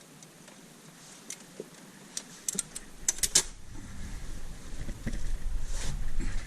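A quick cluster of sharp metallic clicks and clinks from tools or engine parts being handled, then a low rumble of handling noise that grows louder until the sound cuts off.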